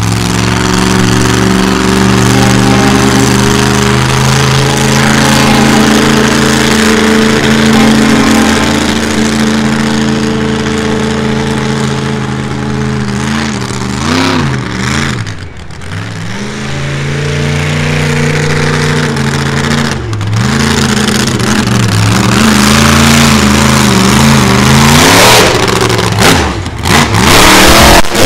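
Monster truck engine running hard at high revs. The throttle is eased off and blipped in the middle so the pitch wavers and dips. It then revs up again and ends in choppy on-off bursts of throttle.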